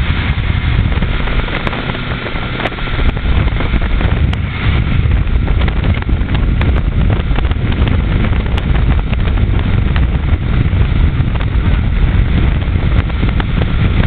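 Motorboat running steadily at speed under load, towing a water skier, with wind buffeting the microphone.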